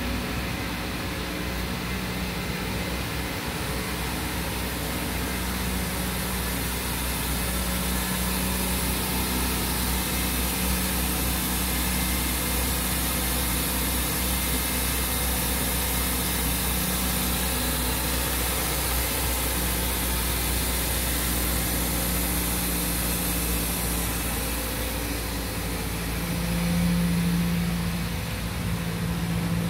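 Toyota Celica GT's 1.8-litre four-cylinder VVT-i engine idling steadily, briefly a little louder near the end.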